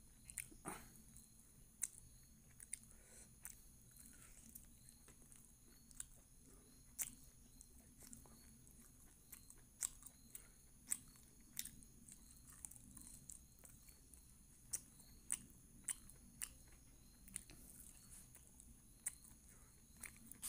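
A person chewing chicken and rice close to the microphone: irregular wet mouth clicks and smacks, about one or two a second, over quiet room tone.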